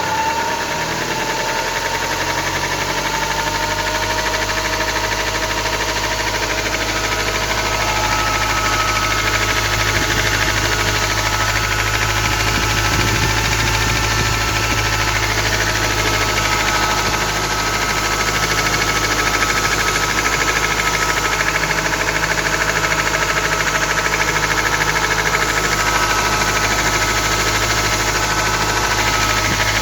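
Ford Transit 2.4 diesel engine running at a steady speed, settling over the first few seconds. It is the engine whose knocking on acceleration the owner cannot explain.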